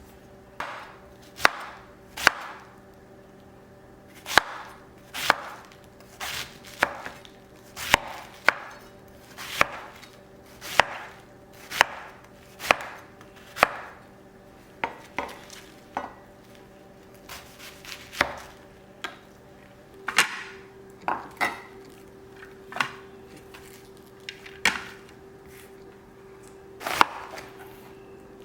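Knife chopping food on a cutting board in slow, irregular strokes, roughly one a second, with a few quicker pairs. A steady low hum runs underneath.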